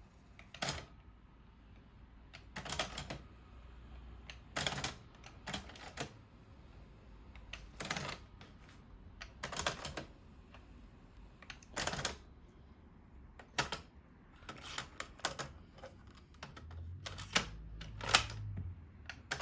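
Mechanical clicks and clunks from a TEAC CD-cassette deck's tape mechanism as its transport controls are worked, one every second or two, with a low hum coming in near the end. The deck is being tested after its worn rubber drive belts were replaced.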